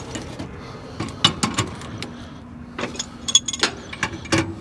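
Metal-on-metal clinks and knocks as a replacement gas valve is turned by hand onto its threaded gas pipe and a pipe wrench is set against it. The taps come in two clusters, one about a second in and one in the second half, some with a short metallic ring.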